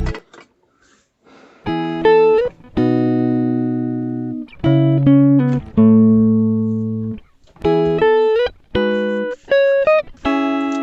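Background music: a guitar playing a slow melody of single ringing notes, some sliding up or down into the next, starting after a short silence near the beginning.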